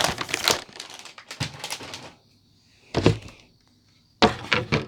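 Plastic snack packaging crinkling and rustling as it is handled, in three bouts: a long one over the first two seconds, a short one about three seconds in, and another near the end.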